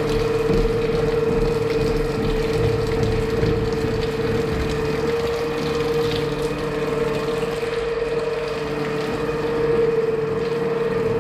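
Steady machine drone carrying one continuous mid-pitched tone over a lower hum, unchanging in level.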